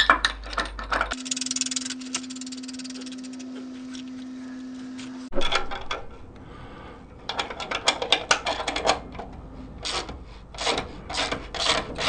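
Bearing puller being worked to draw a ball bearing out of a quad's gearbox housing: metal scraping and rubbing with irregular clicks, a steady low hum for a few seconds early on, and a run of regular clicks, about two a second, near the end.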